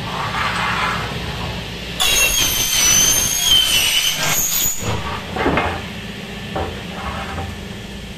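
A power saw cutting through an aluminium window section: about two seconds in, a sudden high, wavering metallic screech sets in and dies away after about three seconds, over a steady low hum.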